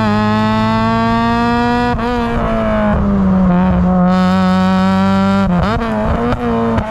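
Honda Civic Type R EP3's 2.0-litre K20 four-cylinder, breathing through a 4-2-1 manifold and 70 mm exhaust, running hard at high revs. The pitch sags slowly, then near the end dips briefly and climbs back up.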